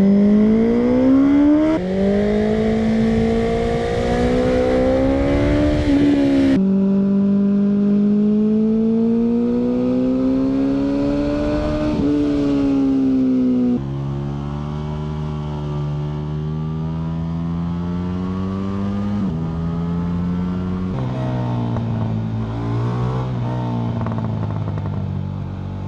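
BMW S1000R motorcycle's inline-four engine pulling hard under acceleration, its pitch rising steadily through each stretch, heard in several spliced clips that cut abruptly from one to the next. The later clips run at a lower, steadier pitch.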